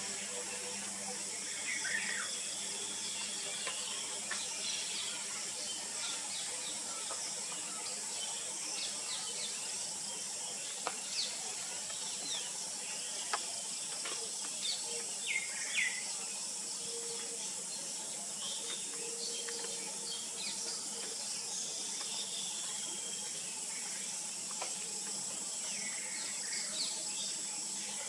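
Outdoor ambience: a steady high hiss with scattered short bird chirps and whistles, a few seconds apart.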